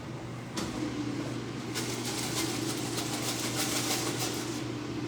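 Air fryer basket being pulled out with a sharp sound about half a second in, then shaken, the chicken pieces rattling in the metal basket for about three seconds, over a steady appliance fan hum.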